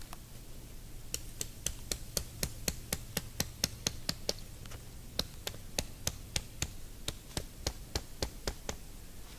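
Rapid sharp knocks, about three or four a second in two runs with a short break near the middle: a stake being hammered into the ground to pitch the tarp shelter.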